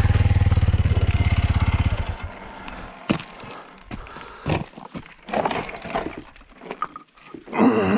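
A single-cylinder motorcycle engine running with a steady, rapid pulse, then cutting out about two seconds in. After that come scattered knocks and clatter.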